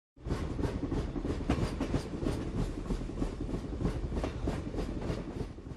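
Train rolling along the track, a rhythmic clickety-clack of wheels over rail joints over a low rumble, fading out near the end.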